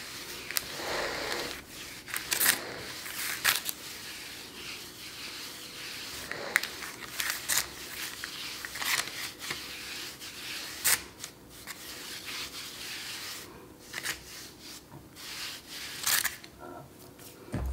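A palm rubbing flour into the surface of a shaped sourdough loaf: a soft, continuous rubbing, with frequent sharp crinkles from the parchment paper under the dough.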